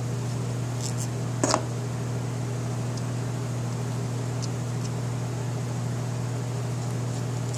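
Steady low machine hum, with a sharp click about one and a half seconds in and a couple of fainter ticks just before it as small motor parts are handled.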